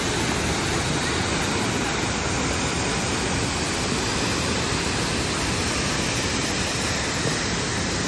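Steady, loud rush of the Düden waterfall plunging into its pool, with the river running over rapids below it.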